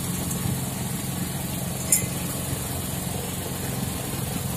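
Steady low engine hum, like a motor idling, with a single short click about two seconds in.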